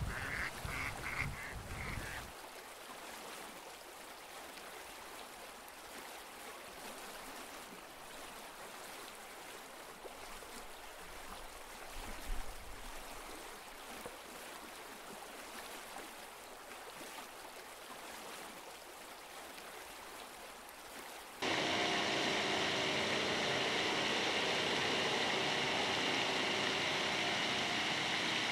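Ducks quacking rapidly for the first two seconds over the steady splash of a pond aerator fountain. About three-quarters of the way through, the rushing water noise abruptly becomes much louder, with a constant hum under it.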